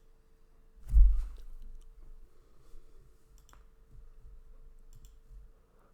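Computer mouse clicking while operating software on a PC: a heavy low thump about a second in, then a few faint sharp clicks, over a faint steady hum.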